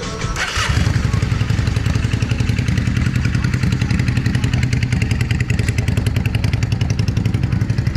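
2006 Yamaha V-Star's V-twin engine starting about half a second in, then running steadily at idle with a fast even pulse.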